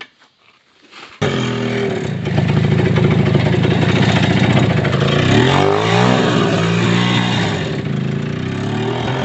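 A vehicle engine comes in abruptly about a second in and runs steadily, revving up and back down around the middle.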